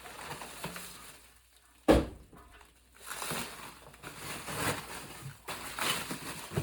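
Cardboard packaging and plastic shrink wrap being handled and pulled open, rustling and crinkling in uneven spells, with one sharp knock about two seconds in.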